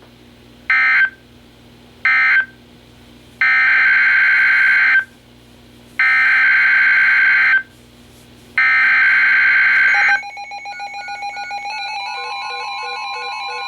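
NOAA Weather Radio SAME digital data signal: two short end-of-message bursts, then three longer header bursts about a second apart announcing the next alert. About ten seconds in, several weather alert radios set off their alarms together, a mix of steady tones and rhythmic beeps.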